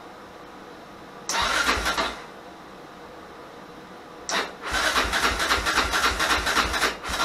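Rebuilt Yamaha Raptor 660 single-cylinder engine (686 big-bore) cranking over on its electric starter in three separate tries: a short one, a longer one of about three seconds, and a brief one at the end, each stopping abruptly without settling into a run. It is not firing, which the owner puts down to the aftermarket CDI box.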